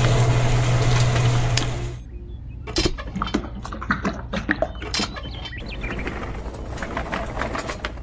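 Small electric motor of a miniature concrete mixer humming steadily, then cutting off about two seconds in. Scattered light clicks and taps follow as the drum is tipped and wet concrete pours into a small metal wheelbarrow.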